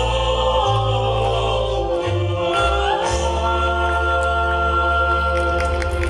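A mixed vocal group singing in harmony through stage speakers, with a deep bass under the voices and a long high note held through the second half.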